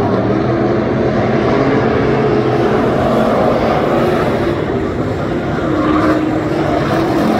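A field of USRA stock cars racing on a dirt oval, with several V8 engines running at once. It is a loud, steady engine din, the pitches rising and falling as the cars pass through the turns.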